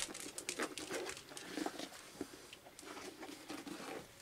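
Rustling and small clicks of a leather boot being pulled on and laced by hand, mixed with short low grunt-like sounds.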